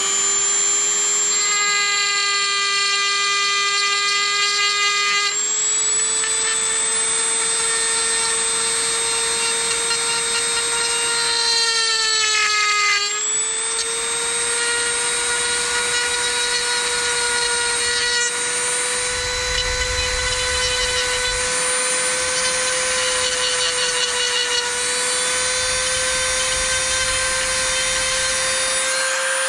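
Dremel rotary tool with a carbide bit running with a steady high-pitched whine while it cuts a notch into the plastic earmuff cup of a hard hat. Its pitch steps up about five seconds in as the speed is turned up, sags briefly near the middle as the bit bites into the plastic, and drops as it winds down at the very end.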